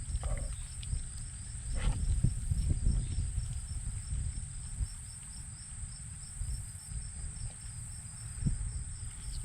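Insects chirping steadily in a regular rhythm of about three chirps a second over a constant high buzz, with low rumbling noise underneath.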